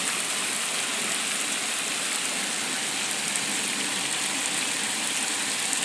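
Torrential rain falling in a steady, even hiss, mixed with floodwater running down a street.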